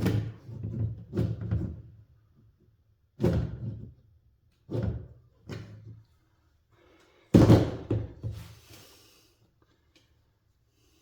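A series of separate knocks and thuds from things being handled and set down on a workbench, the loudest about seven seconds in, followed by a brief rustle.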